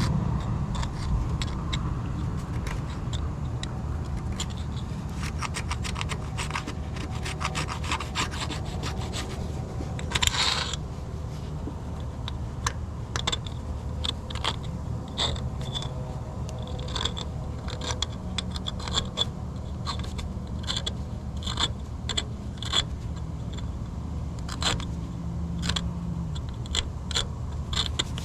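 Hand scraping and rubbing on metal, irregular strokes and clicks with a dense run of quick strokes and a short harsh burst about ten seconds in, over a steady low hum.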